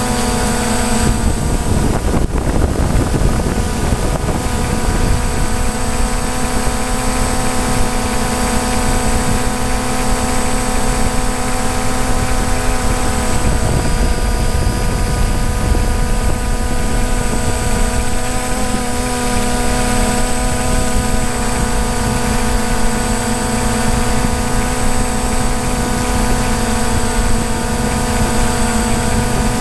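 DJI Phantom quadcopter's motors and propellers buzzing steadily, heard close up from the GoPro Hero3 mounted on the drone itself. The pitch of the buzz shifts about two seconds in and again around thirteen seconds as the motors adjust while it hovers.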